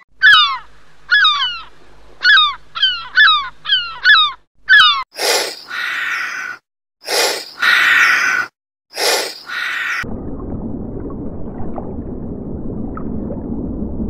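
Herring gulls calling: a quick series of about seven sharp calls, each sliding down in pitch. Then three loud, harsh hisses about a second long each, followed by a low steady rushing noise.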